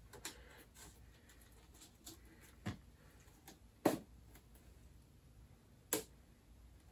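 Handling noise from a pair of model sailplane wing halves being held and adjusted by hand: a few scattered light clicks and taps, the two sharpest about four and six seconds in.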